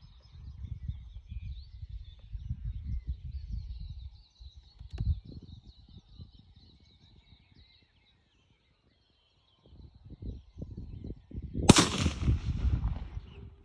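A single rifle shot about twelve seconds in, the loudest sound, its report ringing on for over a second. Before it, low rumbling noise comes and goes under faint birdsong.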